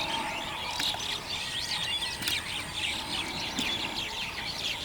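Many birds chirping at once: a dense chorus of short, quick calls overlapping without pause.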